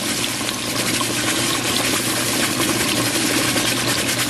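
Flour-coated chicken pieces deep-frying in hot oil in a pot: a steady, dense crackling sizzle of vigorously bubbling oil, with a steady low hum beneath it.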